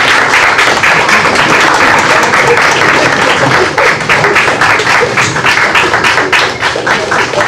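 Loud audience applause, many hands clapping at once.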